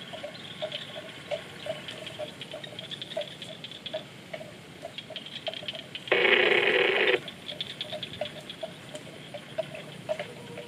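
Water buffalo calves grazing: a steady rhythm of short ticks, about two to three a second, as grass is cropped and chewed. About six seconds in, a loud harsh sound cuts in for about a second and stops abruptly.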